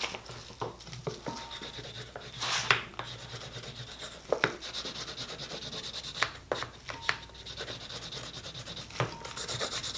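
A tapered wooden tool rubbing back and forth over wet leather, wet-moulding a leather sheath tightly around the chisel inside it: quick, even strokes, about four or five a second, broken by a few sharp knocks.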